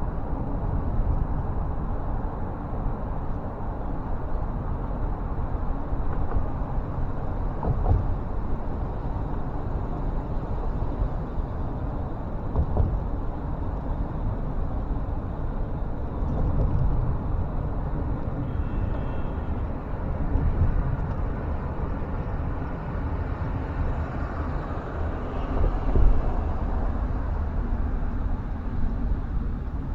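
Steady low rumble of a car driving on a city road: tyre and road noise with wind, and a brief louder bump near the end.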